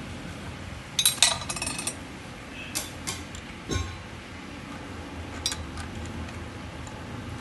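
Steel parts clinking and rattling as hands fit the pins and fittings of a black steel bracket plate. A quick cluster of sharp clinks about a second in is the loudest; a few single clinks and a duller knock follow.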